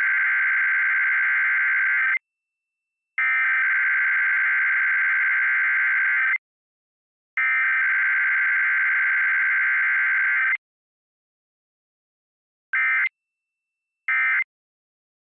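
Emergency Alert System SAME digital data bursts: three long bursts of the alert header, each about three seconds with a second's pause between, then three short end-of-message bursts about a second and a half apart.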